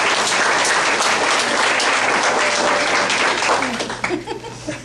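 Audience applauding, a steady clatter of many hands that dies away about four seconds in.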